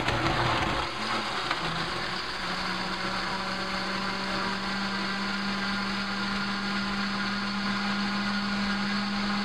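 Countertop blender running on a jug of ice, milk and banana, its motor rising in pitch over the first couple of seconds and then whirring at a steady pitch.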